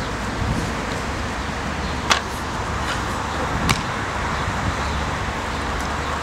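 Steady outdoor background noise with a low rumble, broken by two short sharp knocks about a second and a half apart.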